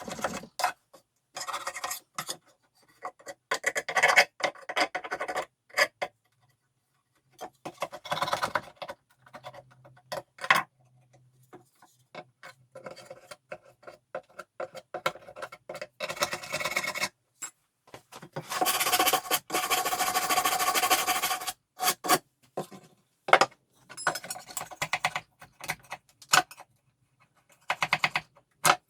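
Hand work on the old wooden butler's table: intermittent rubbing and scraping strokes, with a longer steady stretch of rubbing about two-thirds of the way through.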